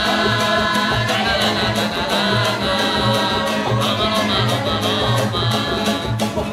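Hungarian Romani folk song with singing over an acoustic band that keeps a steady beat.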